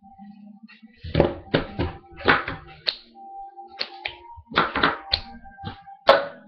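A song playing quietly, with about a dozen sharp taps and thumps at uneven intervals over it.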